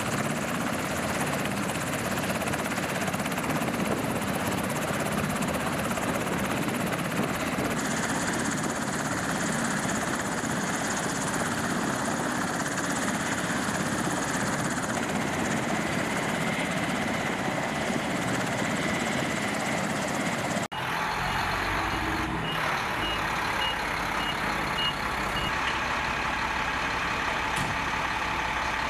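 Black Hawk helicopter running on the ground with its rotor turning: a steady, dense rush of rotor and turbine noise. About two-thirds of the way through it cuts off abruptly, and a military cargo truck's engine runs steadily in its place, with a short run of faint, evenly spaced beeps.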